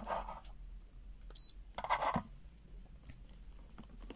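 One short, high-pitched electronic beep from the UNI-T UT123D multimeter's buzzer about one and a half seconds in, during its live-wire check. Brief handling rustles come at the start and about two seconds in.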